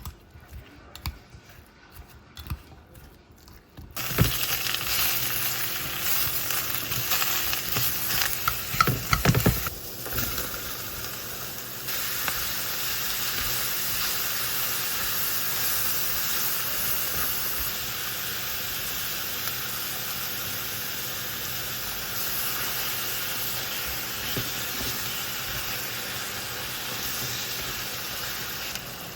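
Food hitting a hot pan and frying with a loud, steady sizzle, starting suddenly about four seconds in after a few light ticks, with a few knocks of the utensil as it is stirred.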